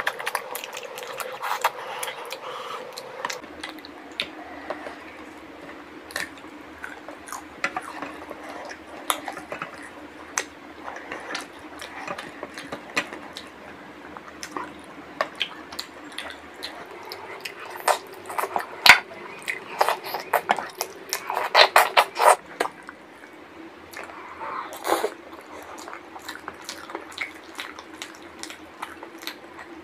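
Close-miked eating sounds: wet chewing, lip smacks and squishes from eating curry and rice by hand, with many short sharp clicks that come thickest about two thirds of the way through. Occasional light clinks of dishes and cutlery.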